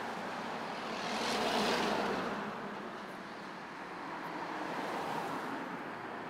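Outdoor road traffic noise, swelling about a second in as a vehicle passes, then easing and rising again more gently.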